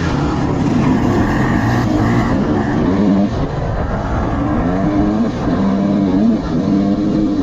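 Dirt bike engine revving up and down as it rides, its pitch rising and falling several times, most often in the second half.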